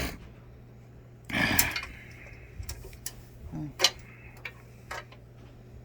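Scattered light clicks and knocks of hardware being handled while the adjustable legs and feet of a sewing-machine table are set to height, with a short scrape about a second and a half in.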